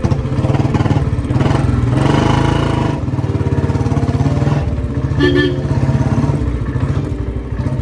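Royal Enfield Bullet 350's single-cylinder engine running and being revved, picking up twice. The owner says it lacks its usual thumping note because the engine has run out of oil.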